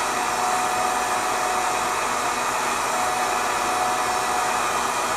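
Electric heat gun running steadily, its fan blowing hot air with a faint steady whine.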